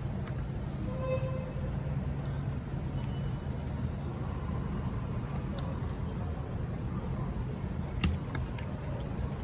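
Steady low mechanical hum with a few light clicks; the loudest click comes about eight seconds in.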